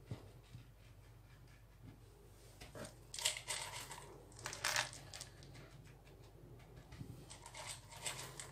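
Faint kitchen handling sounds as a small glass bowl of chocolate shavings is worked over a cake and the shavings are scattered on. A few short clinks and rustles come about three and four and a half seconds in, and again near the end.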